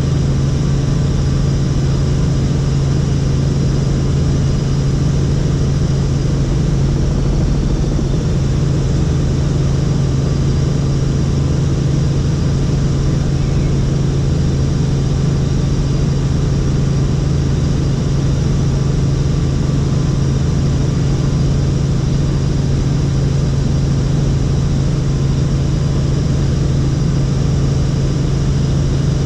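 Helicopter in steady flight: a loud, unchanging drone of engine and rotor with a strong low hum and no change in pitch.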